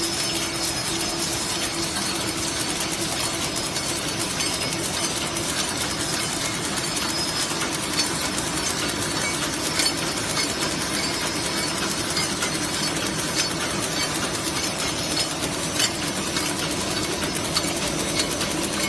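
Automatic cutlery packing machine running: a steady mechanical clatter of its mechanisms over a constant hum, with rapid fine ticking and a few sharper clicks now and then.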